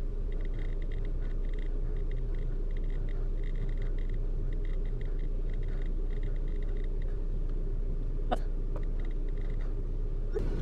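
Steady low hum inside a car. Faint ticking runs through the first seven seconds, and a single click comes about eight seconds in.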